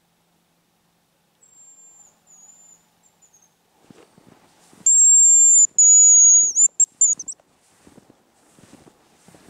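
Hazel grouse decoy whistle blown close by, imitating the male's song: a long, thin, high whistle in two parts ending in a few quick short notes, loud, about five seconds in. A fainter high whistle comes before it, and there is faint rustling and crunching in the snow.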